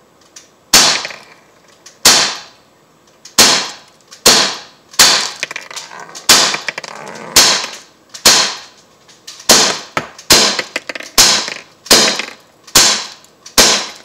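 Umarex Glock 19 Gen 3 CO2 BB pistol, non-blowback, firing .177 steel BBs in rapid single shots. There are about fifteen sharp pops at roughly one a second, each ringing off briefly.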